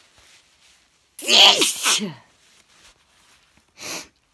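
A woman sneezes once, loudly, about a second in: a sharp burst of breath ending in a voiced cry that falls in pitch. A short breathy noise follows near the end.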